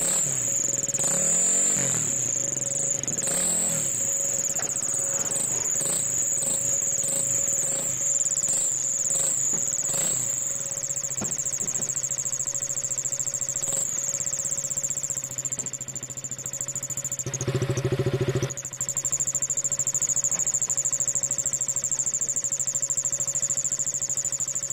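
KTM Duke 200's single-cylinder engine running through an exhaust fitted with a turbo-style whistle insert, which gives a steady high-pitched whistle over the engine note. The engine is revved in several short blips in the first ten seconds and once harder about seventeen seconds in.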